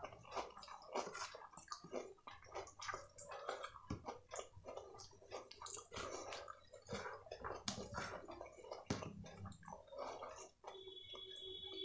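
Fingers squishing and mixing fried rice into saucy chilli paneer on a plastic tray: a run of irregular wet, sticky clicks and squelches.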